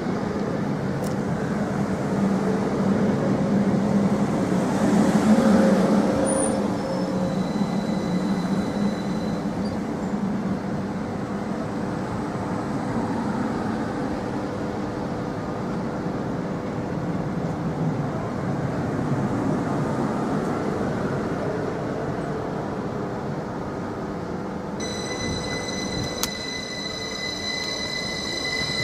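Train running through the station with a steady rumble, then a high-pitched wheel squeal begins a few seconds before the end.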